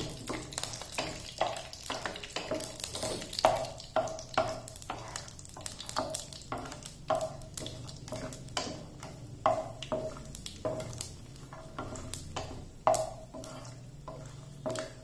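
Wooden spatula stirring peanuts frying in oil in a non-stick pan: irregular scrapes and taps of the spatula on the pan, about one or two a second, over the sizzle of the oil.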